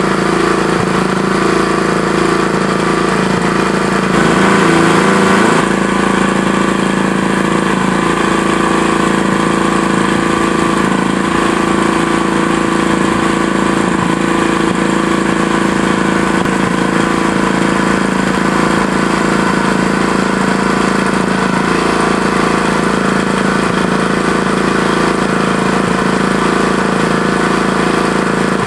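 Small petrol engine of an IW Mauki H6.5 mole-control machine running steadily at a constant speed, with a brief wavering about four to five seconds in.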